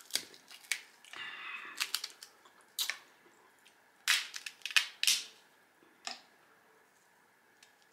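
Crab shell being cracked and snapped apart by hand: a run of sharp cracks and crunches at irregular intervals, loudest about four to five seconds in.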